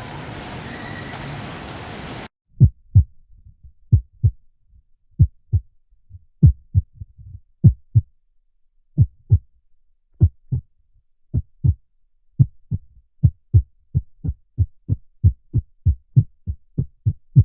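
A steady rushing noise cuts off about two seconds in. A heartbeat sound effect follows: low thumps in pairs that come faster toward the end.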